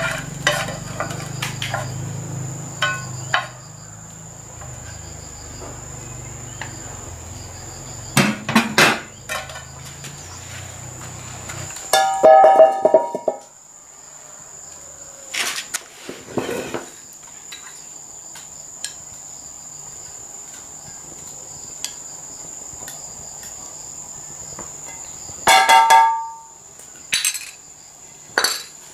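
Steady high insect drone throughout, with scattered metallic knocks and clanks of cookware on an iron fire grate. The two loudest come about twelve seconds in and near twenty-six seconds in, each ringing briefly.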